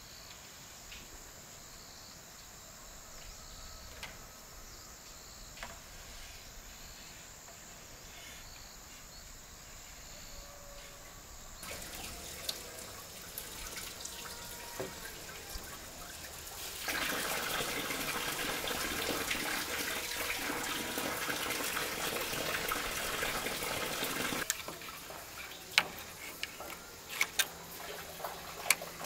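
Running water: it comes in softly about twelve seconds in, runs loud for some seven seconds and stops suddenly. A few sharp knocks follow near the end.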